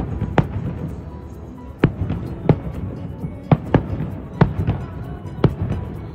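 Fireworks bursting: about ten sharp bangs at irregular gaps of half a second to a second, over a low rumble.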